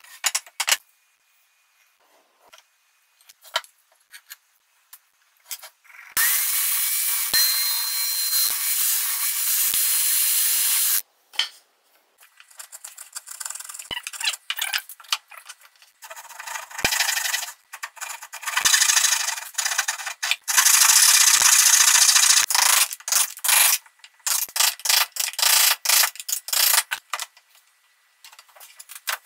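Hand tools cutting a center lap joint in a wooden board. A steady run of sawing starts about six seconds in and lasts about five seconds. Then come irregular scraping strokes and sharp knocks as a chisel clears the waste.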